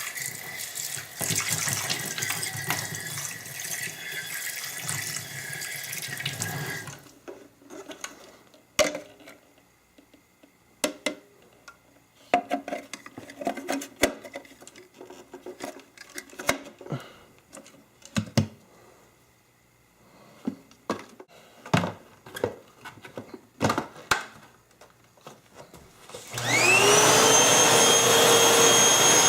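Tap water running for about seven seconds, then scattered sharp clicks and knocks. About 26 seconds in, the Dirt Devil cyclonic vacuum cleaner's motor switches on with a rising whine that settles into a steady, loud run.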